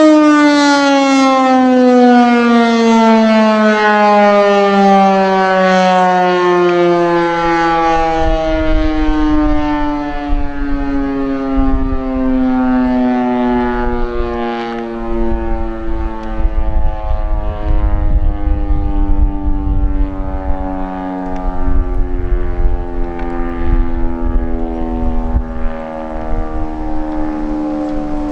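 Federal Super Siren winding down, its wail falling slowly and steadily in pitch. Wind gusts rumble on the microphone from about a third of the way in.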